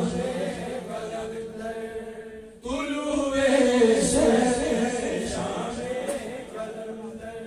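Male voices chanting a manqabat, an Urdu/Balti devotional song in praise of the Imams. One sung phrase fades away about two and a half seconds in and the next starts loudly.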